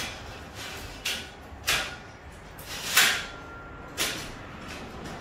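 Steel tubing clanking as a welded steel seat frame is set onto a steel-tube boat frame: about five sharp metal knocks, roughly one a second. The loudest, about three seconds in, leaves a brief metallic ring.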